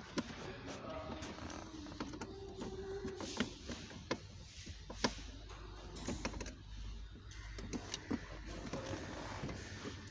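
Irregular clicks and light knocks of hands and tools working on plastic dashboard trim, a few sharper taps standing out.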